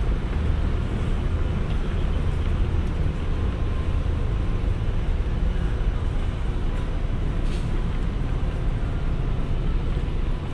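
Steady low rumble of a freight train rolling slowly past, an EH500 electric locomotive hauling container wagons, blended with distant city traffic noise.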